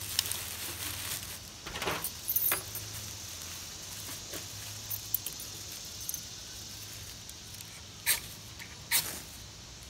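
Bayite keychain ferro rod scraped with the squared spine of a stainless Stanley 10-049 pocket knife blade: several short, sharp scrapes throwing sparks into dry leaves to light them, the two loudest near the end about a second apart.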